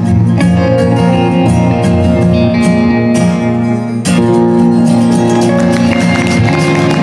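Live acoustic guitar and two electric guitars playing the wordless closing bars of a folk-rock song. A full chord is struck about four seconds in and left ringing.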